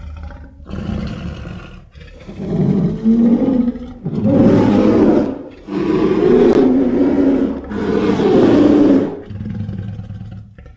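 Designed giant-ape monster roars, a sound-effect mix built from gorilla, lion and polar bear recordings: a run of about five separate roars, each one to two seconds long, the later ones louder, fading near the end.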